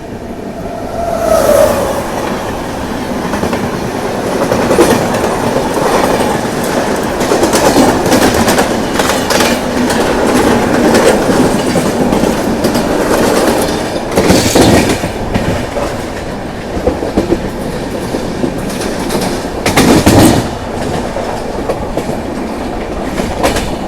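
Train running past close by, its wheels clattering over the rail joints in a continuous clickety-clack, with several louder clanks along the way.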